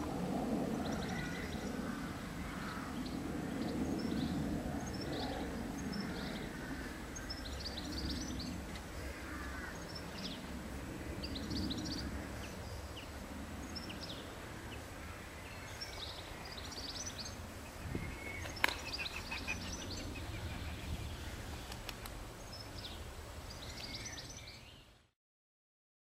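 Small birds chirping in short, scattered calls over a low steady background rumble, with one sharp click about two-thirds of the way through; the sound cuts off near the end.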